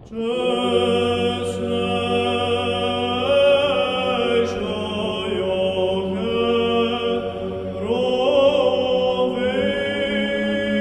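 Orthodox church chant: voices singing a slow melody over a held low drone note, starting suddenly.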